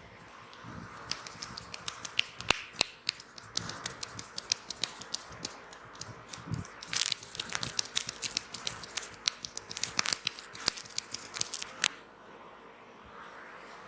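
A massager's hands on the head and hair, making a fast, irregular run of sharp snapping clicks that starts about a second in and stops shortly before the end.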